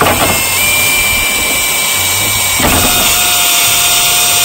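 Cordless brushless drill boring a pilot hole with a combination countersink bit into a composite deck board near its end, pre-drilling so the screw won't split the board. The motor whine runs steadily, then drops to a lower pitch a little past halfway as the bit bites deeper.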